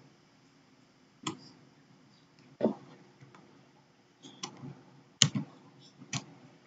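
About seven short, sharp clicks and taps at irregular intervals, the loudest about two and a half and five seconds in, over a faint steady background.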